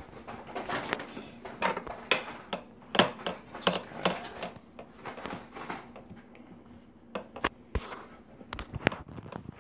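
Microwaved chorizo links being mashed in a dish: irregular clinks and scrapes of a utensil against the dish.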